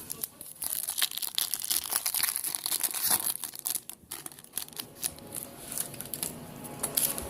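Foil trading-card pack wrapper being torn open and crinkled by hand: a run of irregular crackles.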